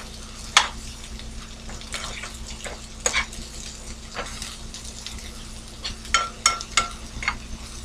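Sliced onions sizzling lightly in a nonstick skillet while a metal utensil stirs them. Scattered clicks and scrapes of the utensil against the pan, with a quick run of several ringing taps about six seconds in.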